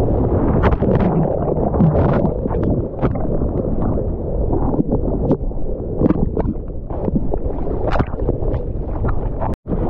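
Ocean water rushing and splashing against a GoPro camera in the surf, with wind buffeting the microphone and many short sharp splashes. The sound cuts out for a split second near the end.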